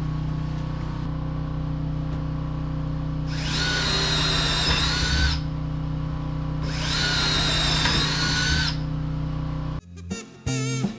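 Power drill running in two bursts of about two seconds each, a high whine, drilling into the wooden bed frame, over a steady low hum. Music starts abruptly near the end.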